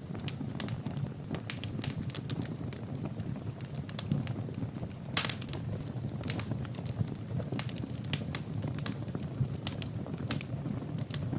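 Wood fire burning in a fireplace: a steady low rumble of flames under frequent sharp crackles and pops from the burning logs, with one heavier pop about five seconds in.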